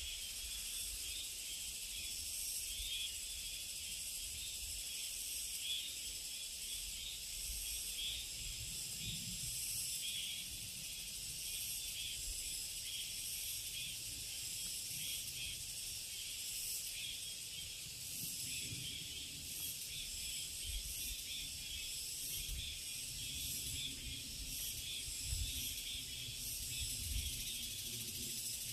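Steady, high-pitched chorus of summer insects shrilling, with a low rumble underneath that grows stronger in the second half.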